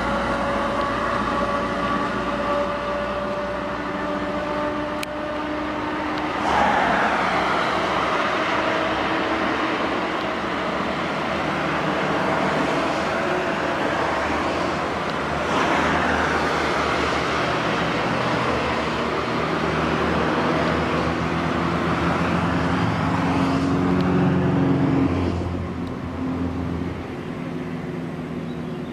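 A column of old Eastern Bloc cars, Škoda saloons among them, driving past one after another. Small engines run throughout, and tyre and engine noise swells three times as cars go close by.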